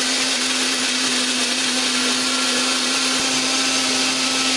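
Ravelle 2-in-1 retro chopper-blender running at a steady speed, its motor humming evenly as it grinds shallots, garlic and spices with a little water into a smooth wet paste.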